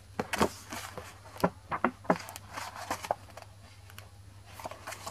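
Handling noise of a cardboard box and a paper booklet being taken out and opened: a scatter of light taps, clicks and paper rustles, busier in the first half and thinning out after about three seconds.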